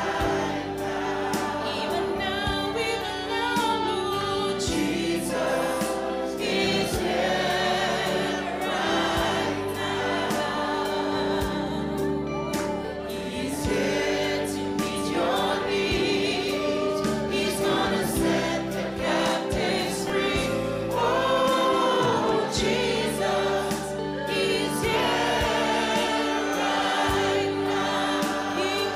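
Gospel worship song sung by a group of singers on microphones, with the congregation singing along, over steady held chords.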